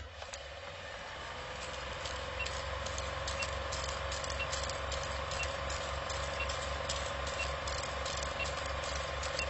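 Steady rain falling, with scattered drips tapping, over the low, even throb of an idling engine.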